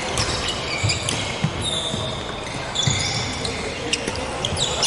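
Badminton rally: sharp racket hits on the shuttlecock, players' shoes squeaking on the wooden court floor in short, high chirps, and dull footfalls.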